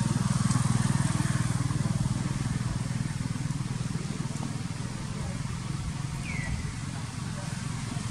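An engine running steadily at low revs, a low even drone with a rapid pulse, with a short high falling chirp about six seconds in.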